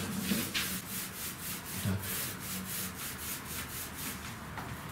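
Paint being applied to a metal shelf in quick back-and-forth strokes, a dry rubbing swish repeating about four times a second, fading a little toward the end as the paint runs thin.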